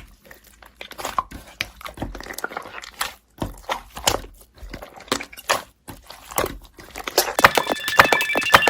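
Slime being squished and kneaded by hand, giving irregular sticky clicks and crackling pops. Faint music with a few steady high tones comes in near the end.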